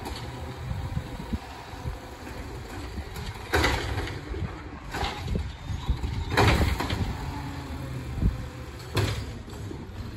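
Peterbilt 520 recycling truck's engine idling as a steady low rumble, with several loud clatters and bangs a second or two apart as recycling carts are handled and emptied into the truck's body. The loudest clatter comes about six seconds in.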